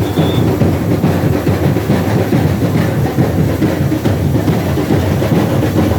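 A carnival bloco's samba drum section (bateria) playing a dense, loud, fast beat.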